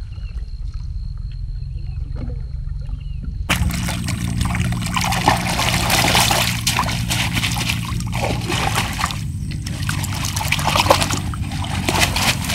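Water splashing and pouring, starting suddenly about three and a half seconds in, over a steady low motor hum.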